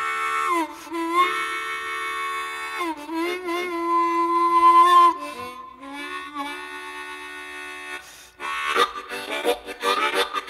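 Harmonica playing long, wailing bent chords in a train-whistle style as the intro of a rock song; about eight seconds in, a drum beat and the full band come in.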